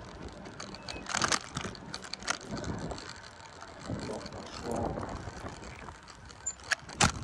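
Bicycle being ridden over city pavement: mechanical clicking and rattling from the bike, with scattered sharp knocks from bumps. The loudest is a double knock about seven seconds in.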